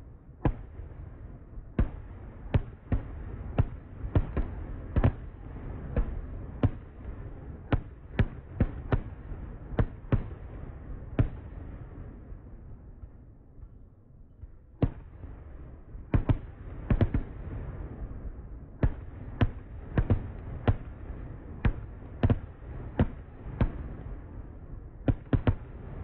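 Fireworks going off: a run of sharp bangs at irregular intervals over a low rumble. They thin out to a lull around the middle, then come thick and fast again.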